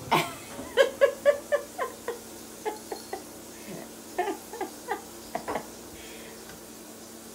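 A person laughing softly: a quick run of short 'ha' bursts that fades, then a few scattered giggles.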